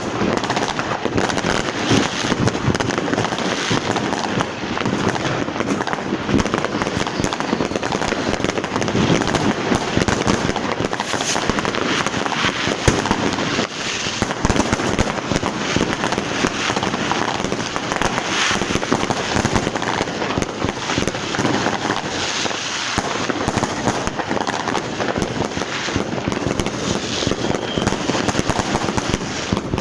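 Many firecrackers and fireworks going off at once, a dense unbroken crackle of overlapping bangs and pops with no pause.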